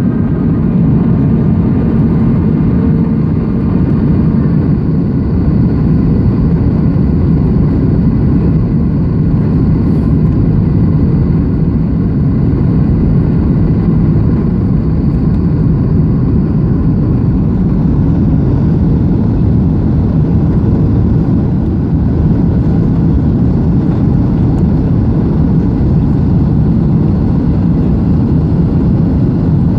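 Steady cabin noise inside a Boeing 737-700 in flight: the constant rumble of its CFM56-7B turbofan engines and rushing airflow, heard from a window seat over the wing.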